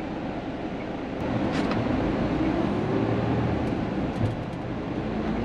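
Truck tractor's diesel engine and road noise heard from inside the cab while driving, the engine note rising as it pulls away harder about a second and a half in. A few light clicks sit on top.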